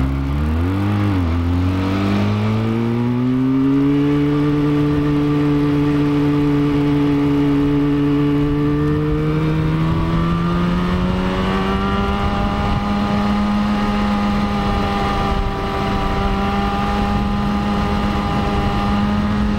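Motorcycle engine pulling up a hill. Its note climbs over the first few seconds and holds steady, then rises again about halfway through and holds, over wind noise on the microphone.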